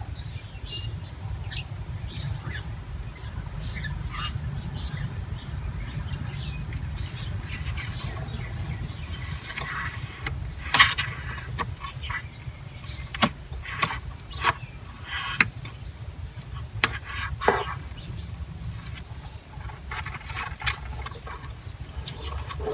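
Outdoor background of a steady low rumble, with faint short bird chirps and a cluster of sharp clicks and knocks through the middle.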